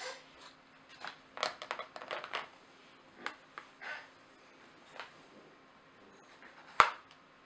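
Kinetic sand and plastic toy moulds being handled: a run of short, soft crunching rustles as a sand cupcake is worked out of a plastic cupcake mould, then one sharp click near the end, the loudest sound.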